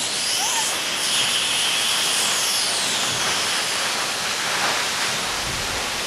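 Zipline trolley pulley running along the steel cable: a thin high whine that rises near the start and glides down in pitch about two seconds in, over a steady rushing noise.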